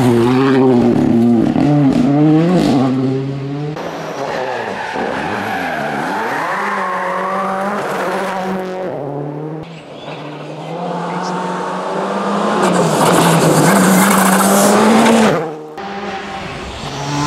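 Rally cars driving flat out on a gravel stage, heard in several short clips that cut abruptly about four, ten and fifteen seconds in. Each engine revs hard, its pitch climbing and dropping through gear changes and lifts, over tyre and gravel noise.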